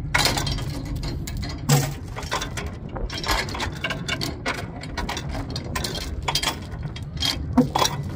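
Tie-down chains and a ratchet load binder being worked to secure a truck on a trailer deck: rapid irregular metallic clicks and clanks of the binder and chain links, over a steady low rumble.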